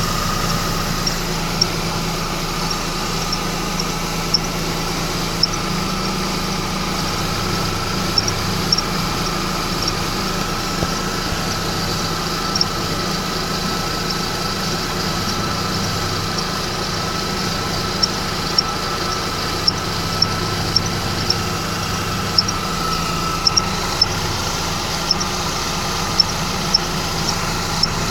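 Mercedes-Benz E350's M272 V6 idling steadily, with short, sharp high-pitched chirps from the accessory belt area coming irregularly, about once a second and more often in the second half. The owner suspects the belt tensioner, which he sees moving in step with the squeak, but is not sure.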